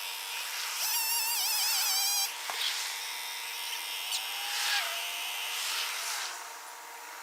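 Two-stroke chainsaw engine running, its pitch wavering for a moment as it works, with a single sharp knock about two and a half seconds in.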